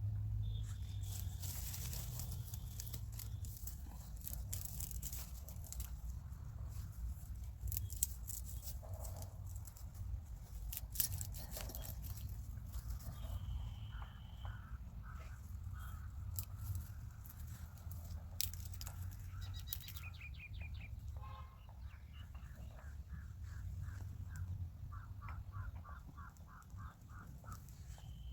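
Birds calling over a steady low rumble, with short high whistles and fast chattering trills in the second half, and scattered sharp clicks.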